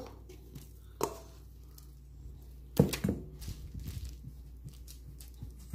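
Kitchen handling sounds as bread dough is turned out of a stainless steel mixing bowl: a knock about a second in and a louder knock with a short ring nearly three seconds in as the metal bowl meets the counter, then soft ticks and rustles of hands working the dough on parchment paper.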